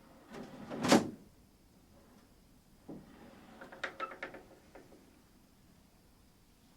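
Old wooden cabin door being worked: a loud knock about a second in, then a run of creaks and clicks from the hinges and boards around three to four seconds in.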